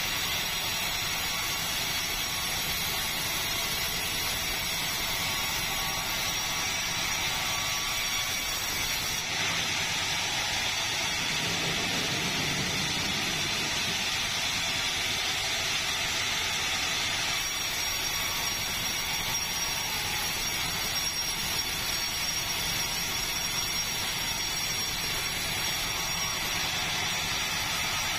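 Sawmill machinery running with a steady mechanical noise; a lower rumble swells briefly near the middle.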